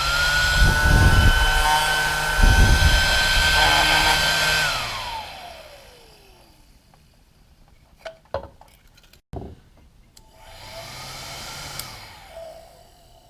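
Small 12-volt car vacuum cleaner (cigarette-lighter plug type) switched on: its motor whine rises, runs steady with two low rushes of air, then winds down about five seconds in. A few clicks follow, and near the end it runs again briefly and more quietly, rising and falling.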